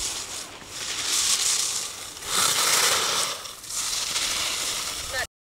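Ski edges scraping and carving across hard snow in three surging turns, a rough hiss that swells and fades with each turn. The sound cuts off abruptly near the end.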